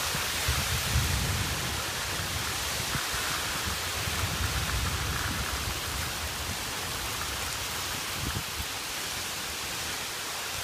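Heavy rain pouring down in a steady, dense hiss. An uneven low rumble runs under it through roughly the first half.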